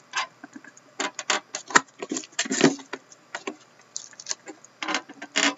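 Cellophane shrink wrap on a hockey card box crinkling and crackling in irregular bursts as hands pull and tear at it, the stubborn wrap not yet giving way.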